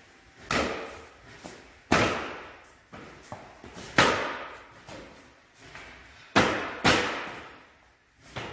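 Floor slat panels being dropped and knocked into place on their support brackets: five loud, sharp slams with a ringing hall echo, and lighter knocks and clatters between them.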